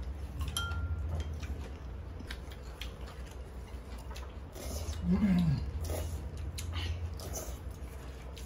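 Close-up eating sounds: chewing on crispy fried chicken, slurping of spicy carbonara buldak noodles, and scattered clicks of chopsticks on bowls, over a low steady hum. About five seconds in, a short hummed 'mm' rises and falls, the loudest moment.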